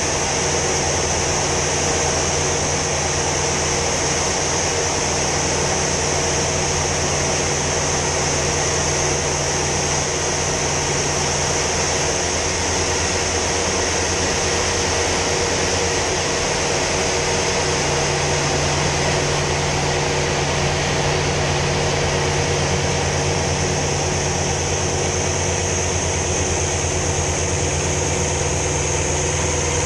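Sea Fury T20's Bristol Centaurus radial piston engine running at display power, heard from inside the cockpit with a steady high hiss of airflow over it. The engine note shifts slightly midway as the aircraft manoeuvres.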